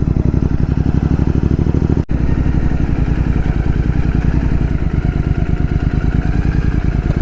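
Royal Enfield GT650's parallel-twin engine running loud and steady through an open exhaust with the dB killer removed, heard from the moving bike. There is a split-second gap about two seconds in.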